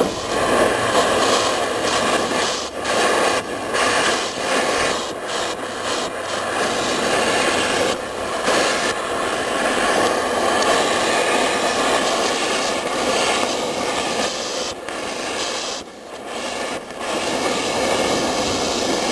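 Oxy-acetylene cutting torch running steadily with a loud hiss as it cuts through the steel door hinge, dipping briefly a few times.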